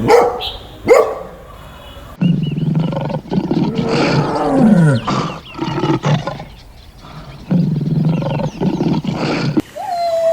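Animal calls: two short, sharp calls in the first second, then a series of long, deep, loud calls with falling pitch, separated by brief pauses and cut off abruptly near the end.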